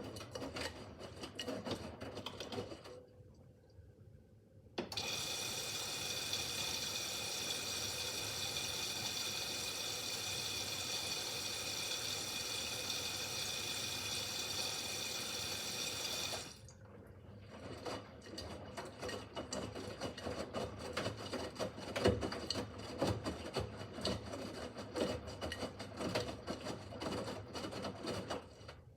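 Miele W5801 front-loading washing machine taking in water early in a 30-degree easy-care wash. The inlet valve hisses steadily for about twelve seconds and then cuts off sharply. Irregular trickling and splashing of water in the machine come before and after it.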